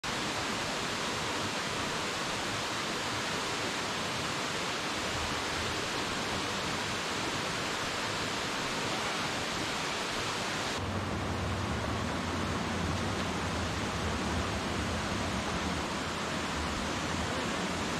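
Rushing creek water over rocks: a steady, even rush. About eleven seconds in it turns deeper, with less hiss and more low rumble.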